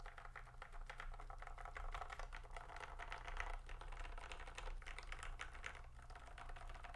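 Fast, continuous typing on an IQUNIX OG80 Wormhole mechanical keyboard whose stock switches have just been lubed: a dense run of key clicks and clacks, with short pauses.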